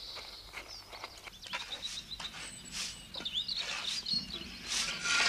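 Small songbirds chirping and twittering outdoors, with short intermittent scrapes and knocks that grow louder toward the end.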